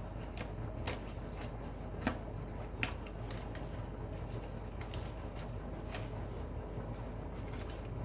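Bosch front-loading washing machine running a 90 °C drum-cleaning wash: water sloshing in the turning drum against the door glass, over a low steady hum. Irregular sharp clicks and splashes come through, the loudest about two and three seconds in.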